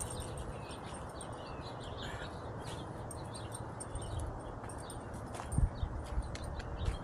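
Wind rumbling on the microphone outdoors, with faint bird chirps scattered through and a couple of soft thumps about five and a half seconds in.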